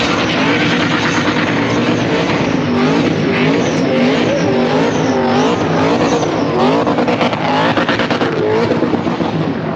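Supercharged LS V8 in a Holden VN Commodore being revved hard up and down during a burnout, its pitch rising and falling about twice a second, over the hiss of spinning tyres.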